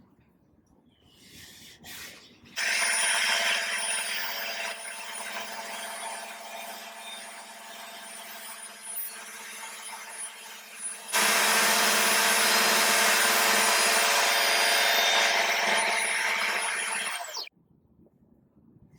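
A woodworking power tool's motor starts and runs steadily, grows louder and harsher about two-thirds of the way through, then is switched off and its whine drops away as it winds down.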